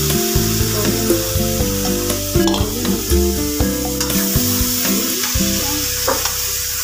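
Chopped tomatoes and capsicum sizzling in a metal kadai while a metal spatula stirs and scrapes through them. Background music plays under the sizzle.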